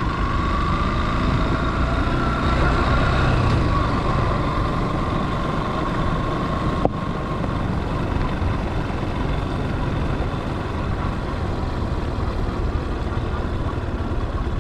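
Vehicle engine and road noise while travelling: a steady running sound with a faint whine throughout, and one sharp click about seven seconds in.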